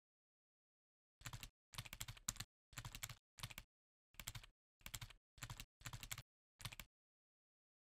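Computer keyboard typing: about a dozen short, irregularly spaced keystroke clicks over some five and a half seconds as a password is typed in, stopping about seven seconds in.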